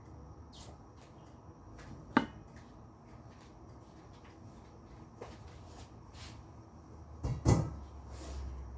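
Sparse kitchen handling noises: a sharp knock about two seconds in and a pair of heavier thumps near the end, with a few fainter taps between.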